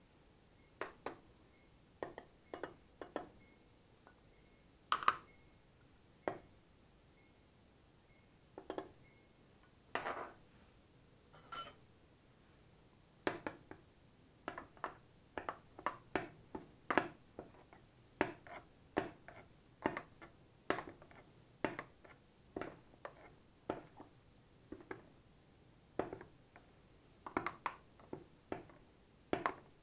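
Metal spoon clinking against a small glass bowl as dried herbs, ground spice and olive oil are spooned together and stirred. A few scattered clinks at first, then a steady run of taps about twice a second through the second half.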